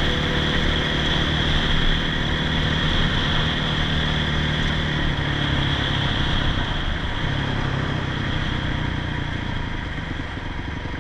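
Motorcycle engine running steadily while riding, its pitch easing down a little about halfway through.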